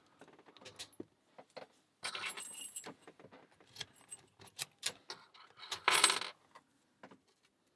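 Lock picks and tension tool working a Stabilit A40-42 padlock with an aluminium body: scattered sharp metal clicks and scrapes, with two louder bursts of metallic rattling, one about two seconds in and one near six seconds.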